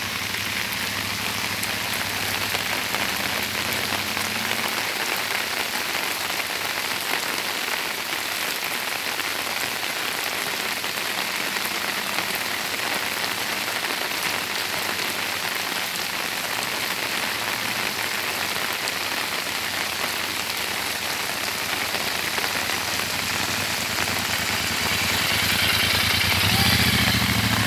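Heavy rain falling on a wet road, a steady even hiss. Near the end a motorcycle's engine comes in close by and grows louder.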